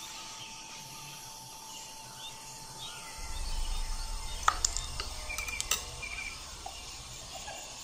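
Outdoor ambience of birds chirping and insects, with a steady thin tone that stops about four and a half seconds in. A low rumble comes in about three seconds in, and a few sharp clicks fall near the middle.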